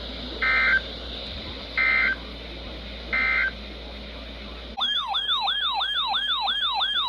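Three short, identical digital data buzzes about a second and a half apart: the Emergency Alert System end-of-message bursts that close a flash flood warning. About two-thirds in, a siren-like alert tone starts, rising sharply in pitch over and over, about three sweeps a second.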